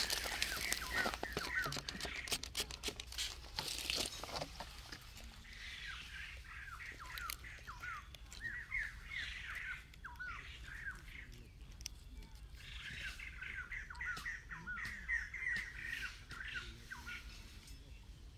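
A bird calling in rapid series of short chirps, in several bouts. A run of clicks and rustling is loudest in the first few seconds.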